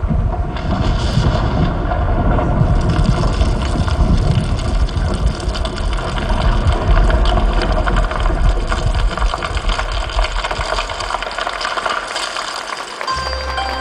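A deep, continuous rumbling and crashing sound effect of crumbling masonry, from the show's soundtrack. It fades about twelve seconds in, and a steady low note with higher held tones of music begins near the end.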